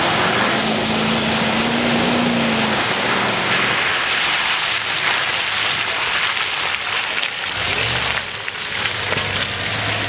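Ford F-150 pickup engine revving, its pitch rising over the first couple of seconds, as the truck ploughs through deep mud with the wheels spinning and throwing mud and water in a loud, continuous rushing spray. About eight seconds in a steady low engine hum takes over.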